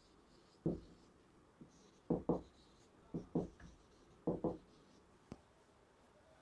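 Marker pen writing on a whiteboard: clusters of short strokes as the words are written, then a single sharp click near the end.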